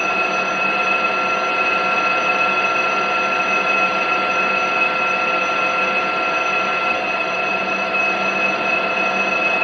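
Metal lathe running under power, turning a small step on a metal workpiece. It gives a steady whine made of several constant tones over an even machine noise, unchanging throughout.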